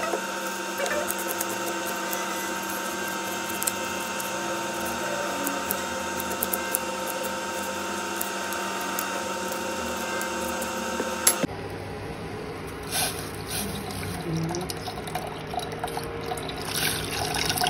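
Knife chopping an onion on a steel plate: a run of quick sharp clicks over a steady hum. Then, after a cut about two-thirds of the way in, milk poured into tea bubbling in a steel pan.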